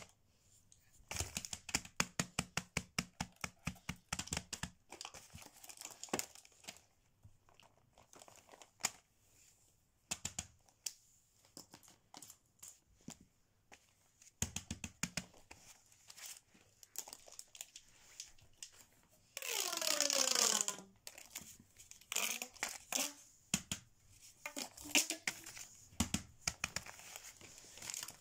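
Silicone pop-it fidget toy, its bubbles pressed in a quick run of pops, about seven a second, then scattered clicks and paper rustling as the fidget toys are handled. About two-thirds of the way in comes the loudest sound, a short squeak falling in pitch.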